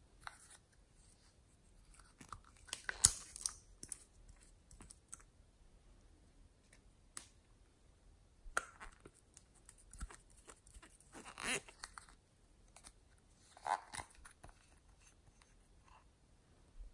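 Small plastic and glass cosmetic-style bottles and caps being handled and opened: quiet scattered clicks and taps, one sharp click about three seconds in, and a few brief scraping, crackling rustles.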